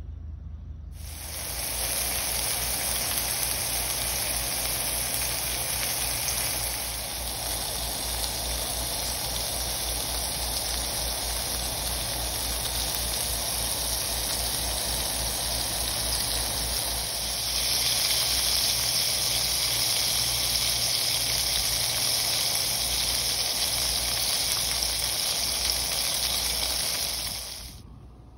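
Hamburger steak patties sizzling in hot oil in a frying pan, a steady crackling hiss. It gets louder and brighter about two-thirds of the way through, then cuts off abruptly near the end.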